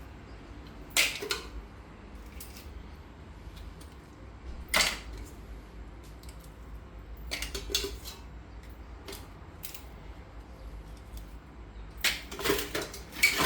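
Sharp clinks and clatter of mussel shells and kitchenware being handled while the mussels are cleaned: single clicks several seconds apart, then a quick run of them near the end.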